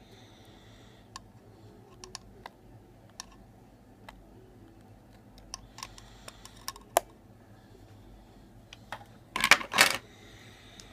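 Light plastic clicks from a Nissan key fob being handled, spaced irregularly, then a louder quick cluster of clicks and clatter about nine and a half seconds in.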